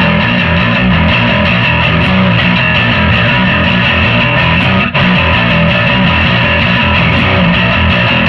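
Electric bass played heavily distorted through a home-built Rat-style distortion pedal and a gain boost, churning low notes in a steady rhythm. A brief break about five seconds in.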